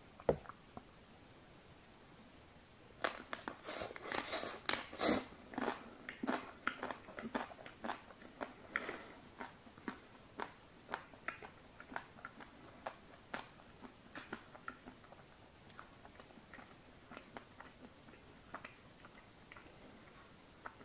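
Close-miked eating of a white-chocolate-coated ice cream bar spread with Nutella. A few seconds in, a dense burst of crunching as the hard coating cracks under the bite, then chewing with scattered mouth clicks that grow sparser.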